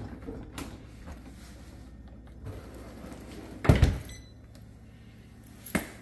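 Dishwasher door swung up and shut with a loud double thump about two-thirds of the way in, followed by a short sharp click at the door latch near the end.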